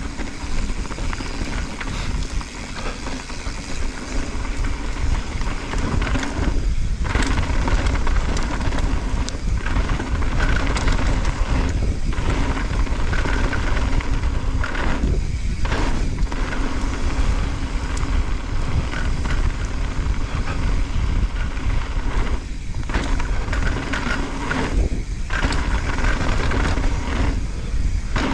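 Mountain bike rolling fast down a dirt and gravel trail: knobby tyres crunching over loose ground and the bike clattering and rattling over bumps, under a steady rush of wind on the microphone.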